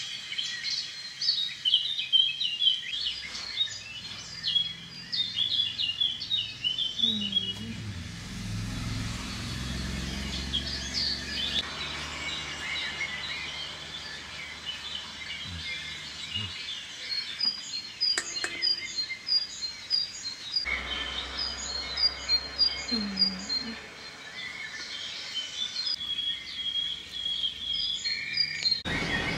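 Small birds chirping and singing, with runs of short, evenly repeated chirps, over a low background rumble that comes and goes.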